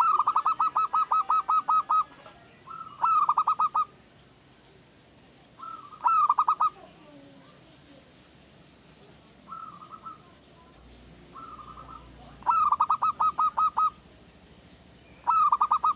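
Male zebra dove (perkutut) cooing in repeated phrases, each a quick run of staccato pulsed notes; seven phrases, the first about two seconds long and a couple of short, incomplete ones about ten seconds in. It is a young wild-caught bird only just beginning to sing.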